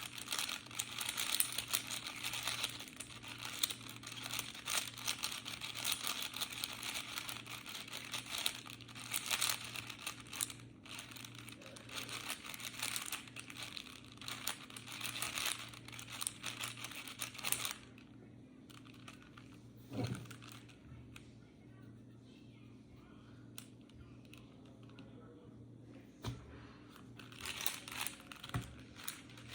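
A plastic 4x4 speed cube being turned quickly by hand to scramble it: a dense run of clicking and rattling that goes on for about eighteen seconds, then stops, leaving only a few scattered clicks. A steady low hum runs underneath.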